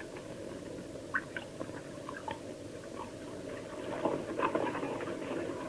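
Quiet background: a steady low hiss with faint, scattered soft clicks and taps.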